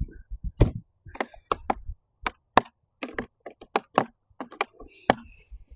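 Tools being handled and shifted in a hard plastic Milwaukee Packout tool box: a quick, irregular run of clicks and knocks.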